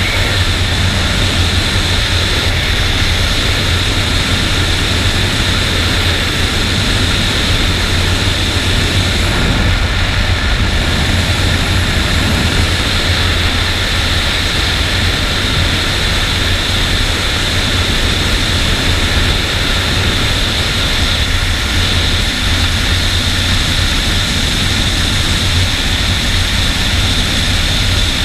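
Suzuki Bandit's four-cylinder engine running steadily while cruising at speed, mixed with a steady rush of wind and road noise on the bike-mounted camera.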